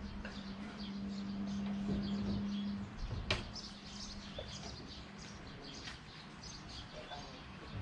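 Small birds chirping repeatedly in short high calls, over a steady low hum that cuts off about three seconds in, followed by a single sharp click.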